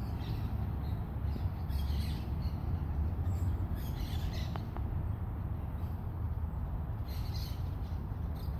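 Faint bird chirps at scattered moments, several near the start and a cluster about seven seconds in, over a steady low rumble.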